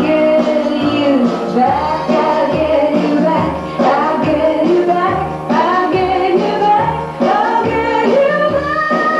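Music with a woman singing over a steady bass beat.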